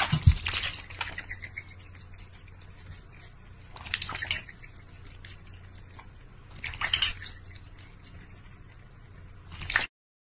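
Water splashing and dripping in a large stainless steel bowl, with a duck dabbling in the water. It comes in short bouts of sloshing about every three seconds, with quieter drips in between.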